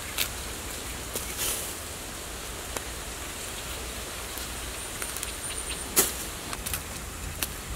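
Dry fibrous plant material crackling and snapping as it is torn apart by hand: a few sharp snaps scattered through, the loudest about six seconds in, over a steady faint outdoor hiss.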